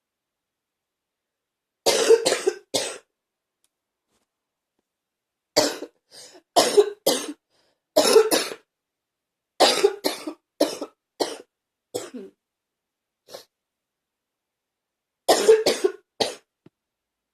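A person coughing in repeated fits: clusters of two to four short, harsh coughs every few seconds, a persistent cough that has not cleared.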